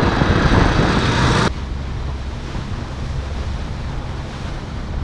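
Wind buffeting the microphone over a running motorcycle engine while riding. About a second and a half in it cuts abruptly to a quieter, steady low hum.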